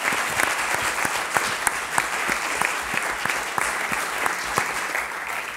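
Audience applauding: many people clapping steadily, easing off a little near the end.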